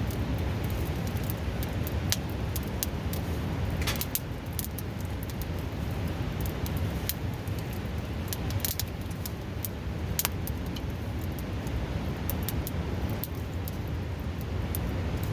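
Wood campfire crackling, with frequent sharp, irregular pops, over the steady rush of a river close by.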